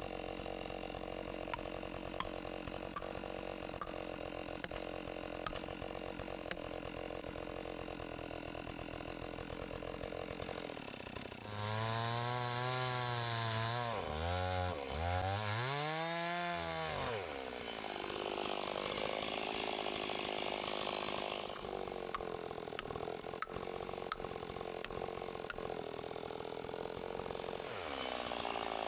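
Chainsaw cross-cutting a log. It runs with a steady drone for about ten seconds, then the engine pitch swings up and down sharply several times, and it settles into a denser, steady cutting sound that rises again near the end.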